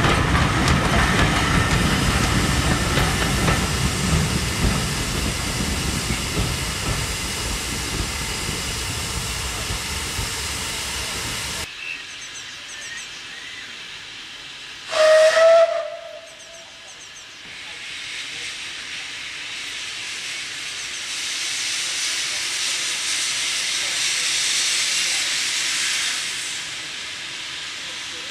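Passenger coaches rumbling and clattering past close by, cutting off suddenly partway through. Then a distant steam locomotive gives one loud whistle blast of about a second, followed by a steady hiss of steam.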